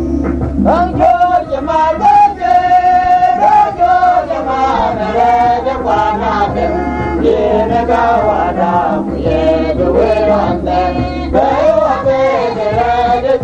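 Dinka gospel song: voices singing over instrumental accompaniment with a steady low bass.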